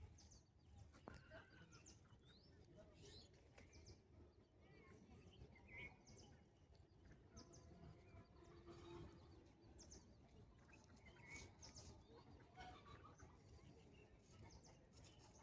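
Faint, scattered short bird chirps over low background noise.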